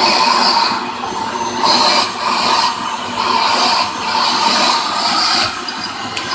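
Vacuum cleaner running with its crevice nozzle worked over a cat's fur. The hiss of the airflow swells and fades about once a second as the nozzle moves over the coat.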